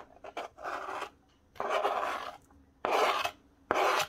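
Knife scraping diced red onion across a plastic cutting board into a glass bowl: a few light clicks, then four scraping strokes of about half a second each.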